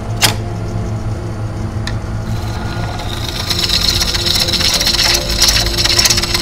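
Wood lathe running with a steady low motor hum while a turning tool cuts into a spinning birch bowl blank. A sharp tick comes just after the start. About two seconds in, the cut begins: a hiss of shavings coming off the wood that grows louder through the rest.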